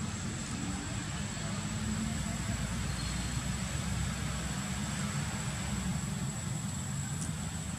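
Steady outdoor background noise: a continuous low rumble with a thin, steady high-pitched whine over it, and no distinct event.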